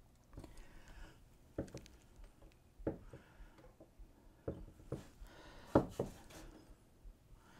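Scattered light knocks and clicks of small objects being handled and set down, about ten in all, with soft rustling between them; the loudest knock comes about three-quarters of the way through.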